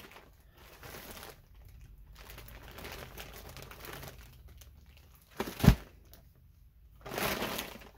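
Plastic crinkling and rustling: clear plastic-wrapped packs of yarn and a black plastic bin bag being handled, in on-and-off bursts. A single loud thump about five and a half seconds in, then a louder rustle near the end.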